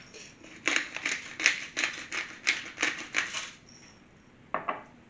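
Hand salt grinder grinding pink Himalayan salt: a run of quick crunching strokes, about four a second, then a short pause and two more strokes near the end.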